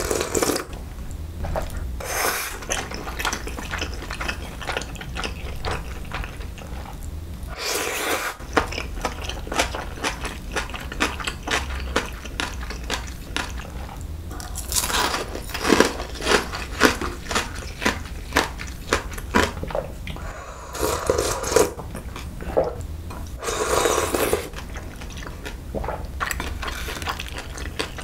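Close-miked eating sounds: a sip of cold noodle broth from a bowl at the start, then steady chewing of dumplings with many short wet mouth clicks and smacks. Louder bursts of chewing come a few times.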